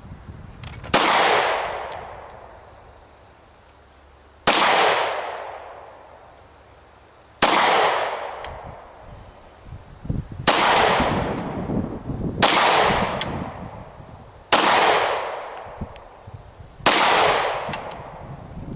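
Seven pistol shots from a Glock 22 in .40 S&W, fired slowly about two to three seconds apart, each sharp report trailing off in an echo. This is a function test of the pistol after a steel captive recoil rod and spring replaced the polymer one.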